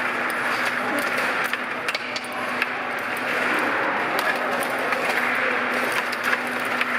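Stiga rod table hockey game in play: frequent short, sharp plastic clicks and clacks of the puck, figures and rods, over steady background noise with a faint hum.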